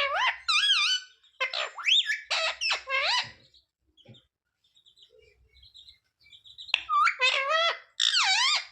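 Indian ringneck parakeet giving loud, sweeping, rising-and-falling calls in quick runs, then a near-quiet stretch with a few faint high chirps, then another run of calls starting about two-thirds of the way through.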